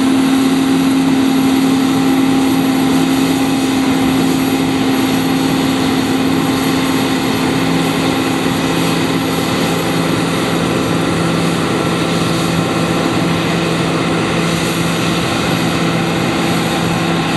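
John Deere T560 combine harvester running steadily while cutting oats: a constant engine and machinery drone with a steady whine, easing a little in level after the first few seconds.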